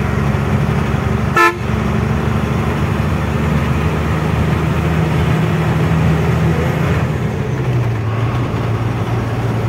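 Truck engine running with a steady low hum, and one short horn toot about a second and a half in. The engine note drops lower near the end.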